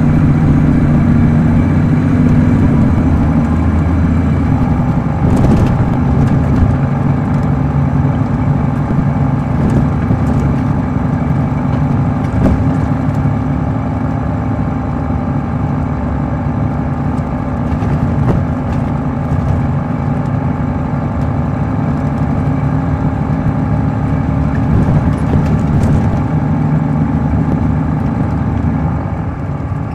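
Caterpillar C13 ACERT diesel engine of a 2006 MCI D4500CL coach, driving through an Allison automatic transmission, running steadily under way. Its pitch shifts slightly about five seconds in, where a higher whine joins, with a few faint knocks and rattles scattered through.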